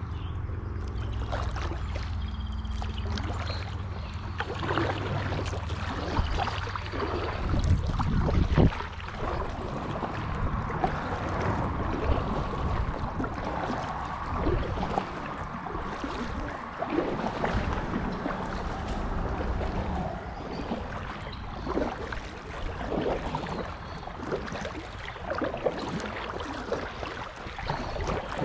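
Kayak paddle strokes dipping and splashing in shallow river water, with water running off the blades and moving past the hull. A low rumble underlies the first eight seconds or so.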